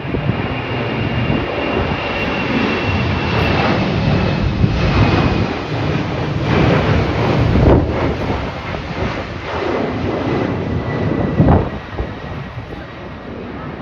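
Jet airliner flying past, its engine whine a high tone that slowly falls in pitch over a deep rumble. Strong wind gusts buffet the microphone, loudest about eight and eleven seconds in.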